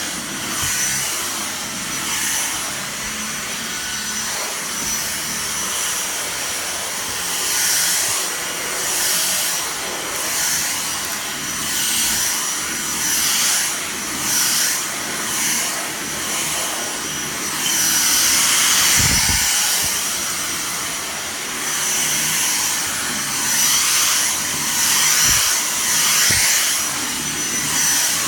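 Dyson vacuum cleaner running with a steady high whine, its airflow swelling and easing over and over as the cleaner head is pushed back and forth, sucking up dirt from the floor. A few dull low knocks come through in the second half.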